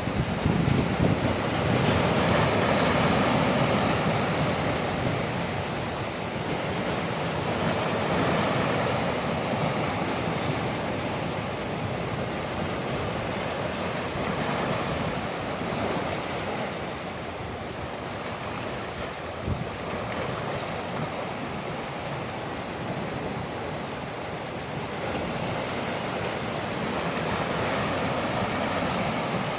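Ocean waves washing ashore, swelling and easing every few seconds, with wind blowing.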